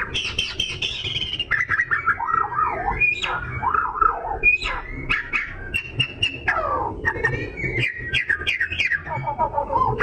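Oriental magpie-robin (kacer) singing a loud, continuous, varied song of quick whistled slurs, rising and falling notes and sharp chips, with one long falling whistle about two-thirds of the way through. It is the persistent 'gacor' song used to provoke other magpie-robins into singing.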